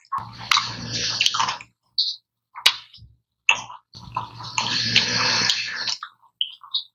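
A person snoring: two long snores about three and a half seconds apart, each a low rumble under a breathy rasp, with a few short clicks between them.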